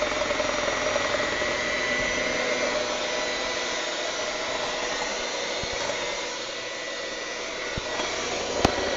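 Electric hand mixer motor running steadily with a whine. A sharp knock comes near the end.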